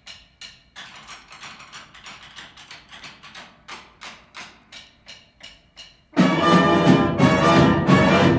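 High school marching band in a percussion break: a quick, steady beat of sharp clicks, like sticks struck together or on a drum rim. About six seconds in, the full band with brass comes in loudly.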